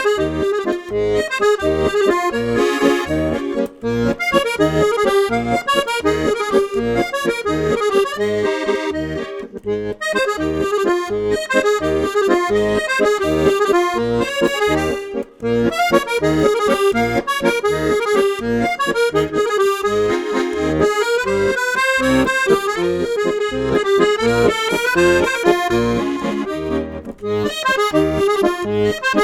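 Background music: a lively accordion tune over a steady bass beat.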